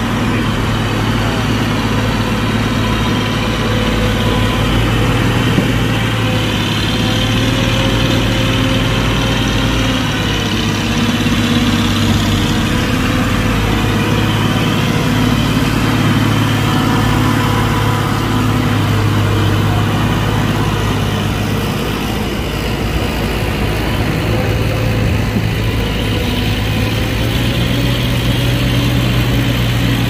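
Heavy machine's diesel engine running steadily, its low hum shifting slightly in pitch now and then.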